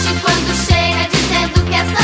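Dance music with a steady beat, strong low beats coming a little less than a second apart.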